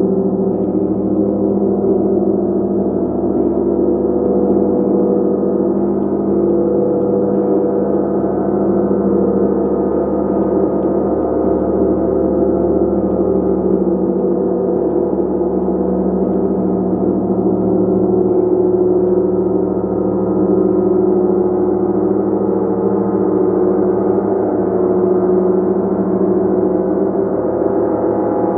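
A large gong played continuously, its many overlapping tones blending into a dense, sustained shimmering wash that holds at an even loudness without distinct separate strikes.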